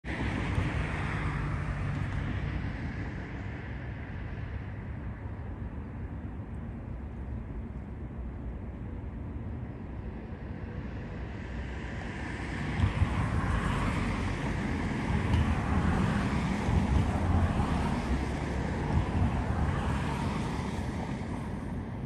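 Freight train rolling past on the rails, a steady rumble of wheels and cars with wind noise on the microphone, growing louder about halfway through.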